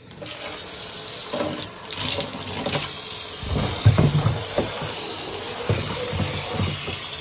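Tap water running into a plastic container, splashing on its bottom. The flow starts at once; from about three and a half seconds in the splashing turns uneven, with low knocks as the container is moved under the stream.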